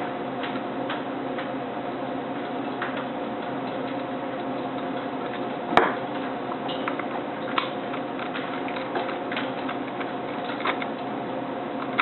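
Scattered light clicks and taps of a wrench and small metal parts on the brush's switch housing as the toggle switch's 9/16 nut is put back on, with one sharper click about six seconds in, over a steady hum.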